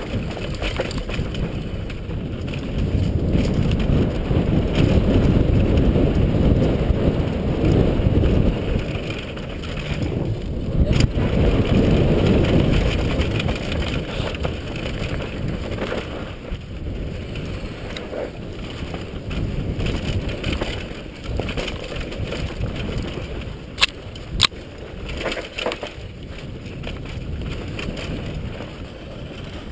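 Wind rumbling on a helmet-mounted camera and mountain bike tyres running over a dirt trail, with the bike rattling over the bumps. The rumble is strongest in the first half; two sharp knocks come close together near the end.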